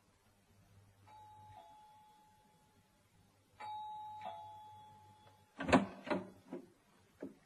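A doorbell rings twice, first a short ring and then a longer one. A few sharp clicks and knocks follow as the door is opened.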